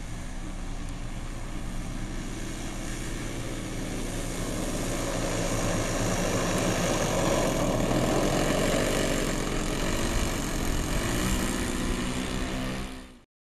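Radio-controlled model Transall transport plane taxiing on grass, its twin propellers giving a steady hum that grows louder as the plane comes closer. The sound cuts off abruptly near the end.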